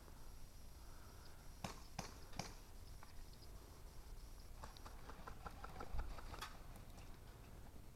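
Airsoft guns firing in the distance: three sharp single cracks, then a quick rattling burst a few seconds later. Low rumble of wind or handling noise on the microphone underneath.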